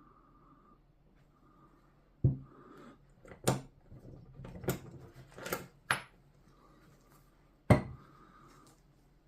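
Sharp knocks and clatter of hard objects being handled and set down on a workbench: a loud knock about two seconds in, a run of clinks and taps over the next few seconds, and another loud knock near the end.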